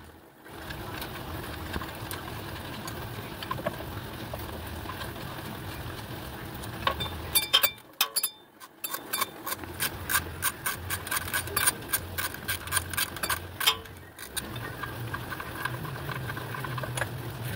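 Socket ratchet clicking in a quick run of ticks while a rear shock absorber bolt is turned, over a low steady hum.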